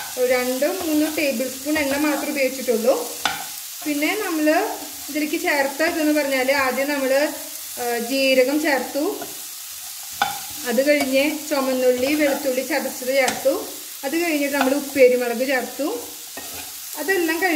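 A spatula scraping and stirring jackfruit seeds frying in a nonstick pan, each stroke giving a squeaky scrape over a light sizzle. There is a short pause in the stirring about ten seconds in.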